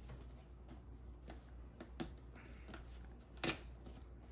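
Cardboard box being handled and picked open by hand: faint scraping and light taps of fingers and box on the tabletop, with a sharper knock about three and a half seconds in.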